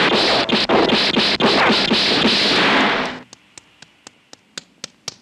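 A loud rushing noise full of rapid crackles cuts off sharply about three seconds in. Faint, even clicking follows, about four clicks a second.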